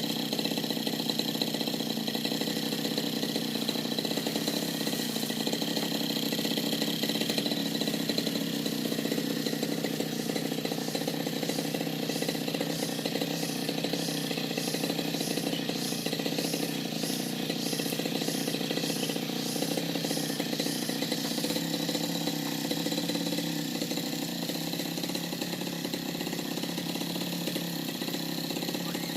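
Petrol brush cutter engine running steadily while cutting patchouli plants.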